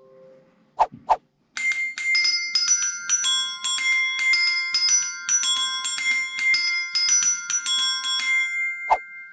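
An iPhone ringtone melody played on high tuned metal percussion: a fast, repeating figure of high ringing struck notes that keep sounding over one another, stopping near the end with the last notes left ringing. Two sharp clicks come just before the melody starts and two more near the end.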